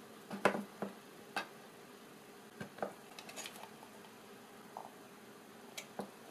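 Scattered clicks and knocks from handling a small 3D-printed plastic container and a pair of needle-nose pliers on a wooden desk, with the sharpest knock about half a second in.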